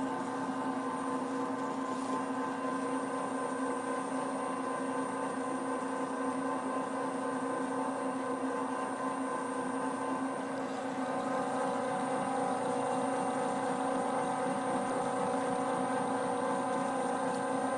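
Arcobaleno AEX18 tabletop pasta extruder running under load as it extrudes pasta, with its cutter attachment spinning at the die. It makes a steady hum of several fixed pitches that gets a little louder about eleven seconds in.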